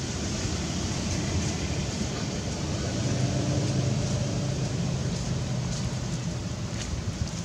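Steady low engine rumble with a faint hum that grows a little louder about three seconds in and then eases off, over outdoor wind and water noise. A couple of faint clicks come near the end.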